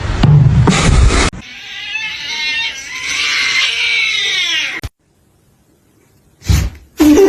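A cat gives one long, drawn-out meowing cry lasting about three seconds, its pitch bending down at the end. It is preceded by a loud rushing noise that cuts off abruptly about a second in, and a short loud burst of noise comes near the end.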